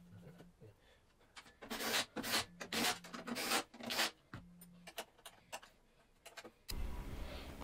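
The sheet-metal casing of an engine-powered welder being handled and fitted back into place by hand: a run of about five short scraping rubs with a few light clicks. Near the end the sound changes abruptly to a steady background noise.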